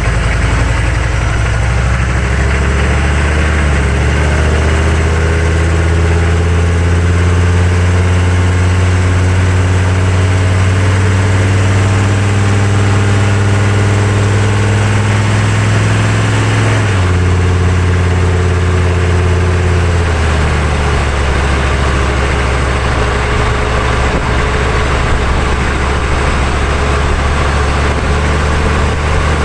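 6.5-litre turbo-diesel V8 of a 1999 GMC 3500 pickup pulling the truck up to speed, heard from under the truck along with tyre and road noise. Its pitch climbs slowly, drops suddenly about halfway through as the transmission shifts up, and shifts again a few seconds later.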